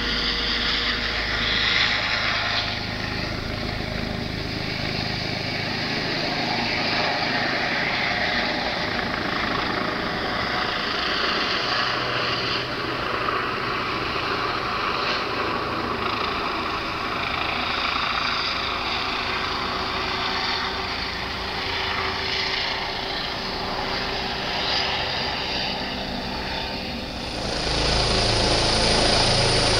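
Rescue helicopter flying overhead: a steady rotor-and-turbine drone. Near the end it turns suddenly louder and fuller as the helicopter comes closer.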